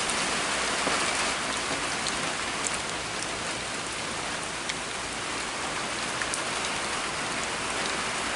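Steady rain coming down pretty good, with scattered sharp taps of single drops.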